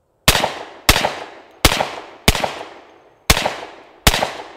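Hi Point semi-automatic carbine fired six times at a steady, unhurried pace, about two-thirds of a second to a second between shots. Each report is followed by a short echo.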